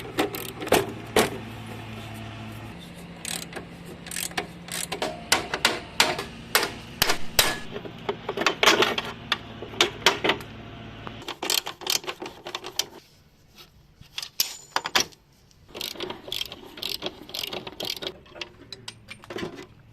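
Irregular metal clinks, knocks and clicks of hand tools working on motorcycle parts. Under them runs a steady low hum that stops about halfway through.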